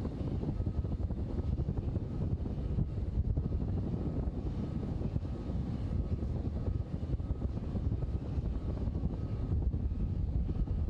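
Boeing 747's jet engines running at low power as it taxis, a steady low rumble with a faint high whine, with wind buffeting the microphone.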